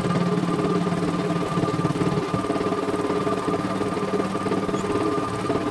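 CNY E900 computerized embroidery machine stitching a test design: its needle runs in fast, even strokes over a steady motor hum while the embroidery arm moves the hoop.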